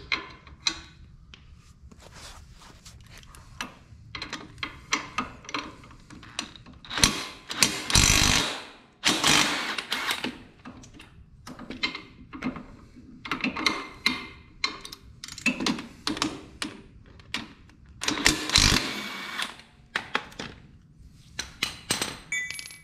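Cordless impact wrench run in several short bursts of about a second on bolts with an 18 mm socket, between clinks and clatter of bolts, socket and metal parts being handled.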